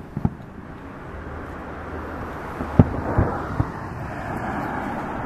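Fireworks shells bursting: two sharp bangs at the start and a louder cluster of three about three seconds in, over a low rumble and a hiss that swells in the second half.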